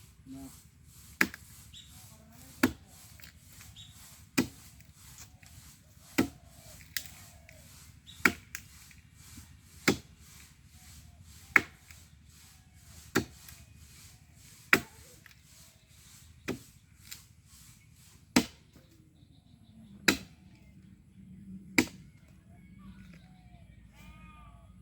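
Axe chopping into a tree trunk: single sharp blows at a steady pace, about one every second and a half to two seconds, some with lighter strokes between them.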